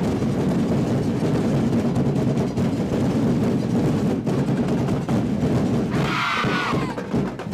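Loud festival percussion ensemble drumming a dense, continuous beat, with a short higher-pitched sound about six seconds in.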